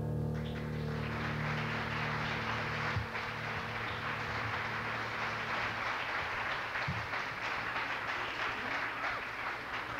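Audience applauding, a dense steady clapping that thins out near the end. A low steady hum sits underneath, strongest in the first few seconds.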